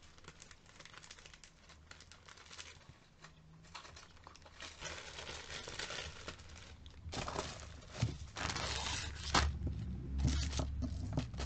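Plastic packaging crinkling and rustling as items are handled, getting louder about halfway through, with a few sharp knocks of handling.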